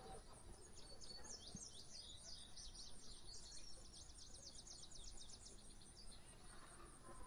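A small songbird singing a fast run of high, rapid chirps, starting about a second in and lasting about five seconds, over faint background noise.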